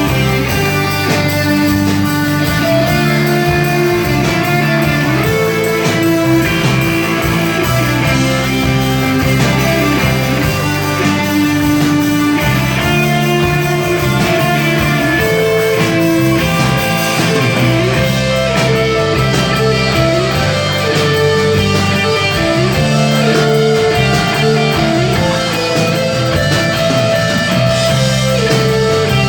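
Rock band playing live, led by electric guitars over a full band.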